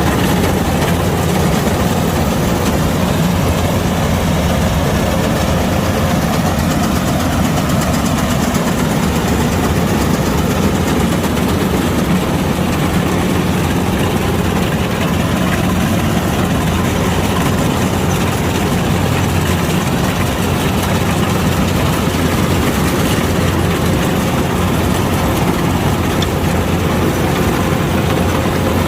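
Kubota DC-105X combine harvester's diesel engine running steadily, a loud, even drone with no change in speed.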